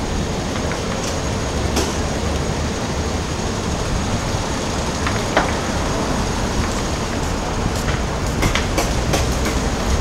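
Steady outdoor city background noise with a low rumble, broken by a few short light clicks and taps, the clearest about halfway through.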